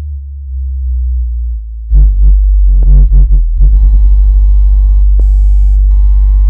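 Synthesized water-ejection tone track: a very deep steady bass tone, joined about two seconds in by a few pulsing higher tones, then by a dense steady mix of medium and high-pitched tones over the bass. The tones are meant to vibrate earbud speakers so that they push water out.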